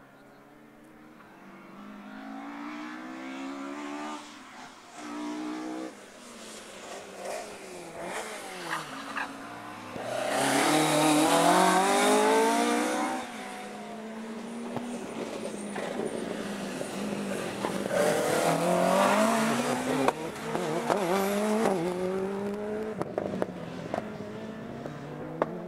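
Rally car engine revving hard, its pitch climbing and dropping again and again through gear changes and lifts of the throttle. It grows louder to a peak about ten seconds in, with a second loud surge about eighteen seconds in.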